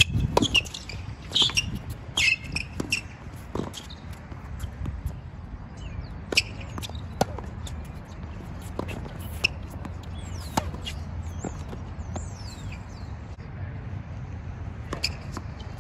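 Tennis rally on a hard court: sharp pops of racket strings striking the ball and the ball bouncing, at irregular intervals, with a few short high squeaks of sneakers on the court. A steady low rumble runs underneath.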